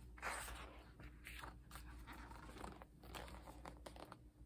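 Pages of a large photobook being turned and handled: several soft paper rustles and scrapes that die away after about three and a half seconds.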